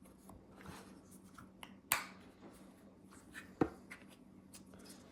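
Hands handling a thermal riflescope: faint rustling and small ticks, with two sharp clicks, about two seconds in and again a second and a half later.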